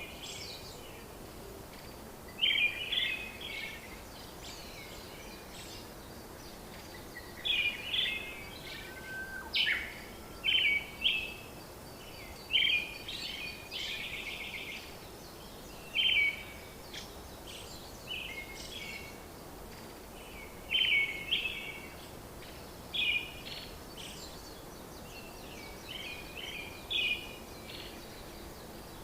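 Short bird song phrases, chirps repeating every second or few, over a steady faint hiss.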